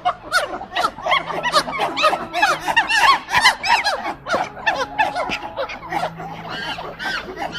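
A group of animals giving rapid, overlapping short squeaky calls, each rising and falling in pitch, several a second.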